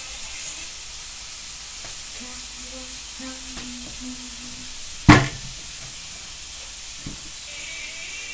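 Steady hiss with one loud, sharp knock about five seconds in and a lighter knock about two seconds later, kitchen-counter sounds during cooking.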